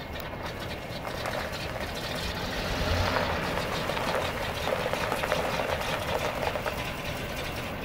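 Ford F-350 Super Duty pickup driving slowly, its engine running steadily with tyres crunching over gravel, a little louder about three seconds in.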